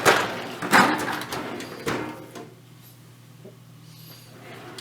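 Drawers of a Craftsman metal tool chest sliding on ball-bearing runners and shutting, about three times in the first two seconds. After that only a faint low hum remains.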